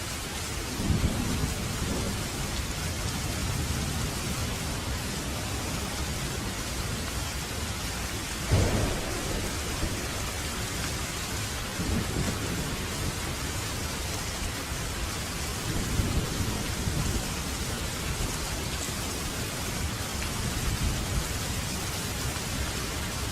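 Steady rain with several low rolls of thunder, the loudest about eight and a half seconds in.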